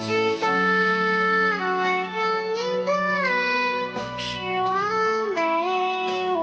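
Background music: a slow melody of long held notes that slide from one pitch to the next, over sustained lower accompaniment.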